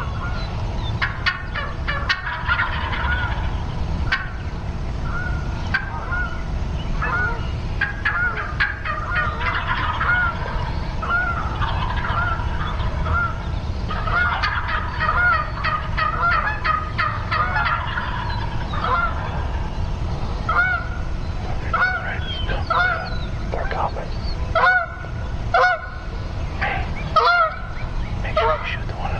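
Wild turkeys calling: a long run of short, repeated yelping notes, crowding together at times, over a steady low rumble.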